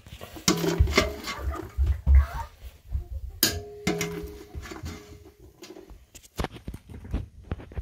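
Metal spoon scraping and knocking against a stainless steel saucepan and a glass bowl as sticky popcorn is scooped out. A couple of sharper clanks, about half a second in and about three and a half seconds in, leave the pan ringing briefly.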